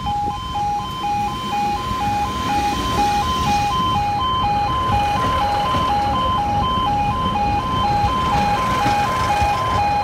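Two-tone level crossing alarm alternating between a higher and a lower tone about twice a second, while an East Midlands Trains Class 156 diesel multiple unit runs past over the crossing. Its engine and wheel rumble build from about two seconds in.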